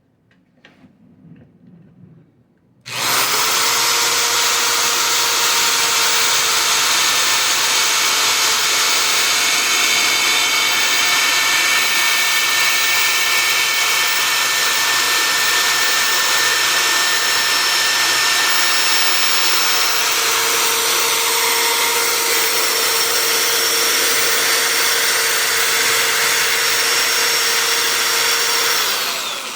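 Electric drill running steadily under load, boring a 35 mm concealed-hinge cup hole through a jig into a cabinet door, with a steady whine. A few light handling clicks come first; the drill starts about three seconds in and stops just before the end.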